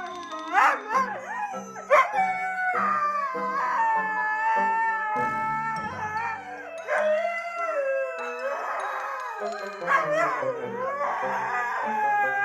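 A husky howling in long, drawn-out calls that glide up and down in pitch, with background music underneath.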